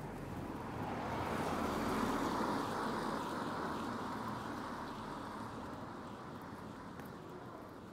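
A car passing on a wet road: its tyre hiss swells to a peak about two seconds in, then slowly fades away.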